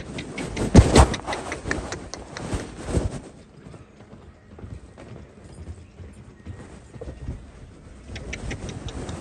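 Irregular knocks and scrapes, loudest in the first three seconds, then fainter, with a few small sharp clicks near the end.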